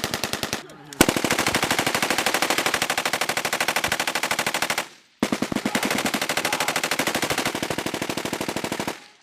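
Machine gun firing long bursts of automatic fire, about a dozen shots a second: a short burst at the start, then two bursts of about four seconds each with a brief break around five seconds in.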